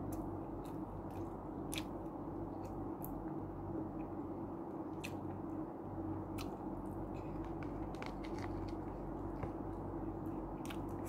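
A person chewing food, with scattered small clicks and smacks spread irregularly through, over a steady low hum.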